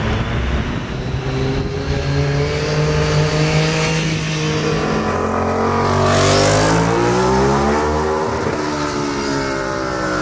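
Ducati Diavel's V-twin engine accelerating, its pitch climbing to a loud peak as it passes close by, then dropping as it pulls away.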